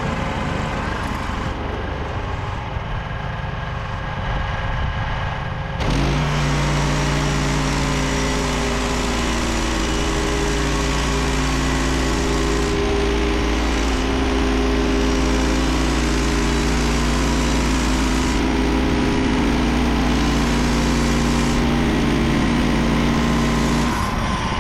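Engine of a Frontier OS27 portable bandsaw mill running while the band blade cuts through a Douglas fir log. About six seconds in it gets louder and settles into a steady engine hum, which drops away near the end.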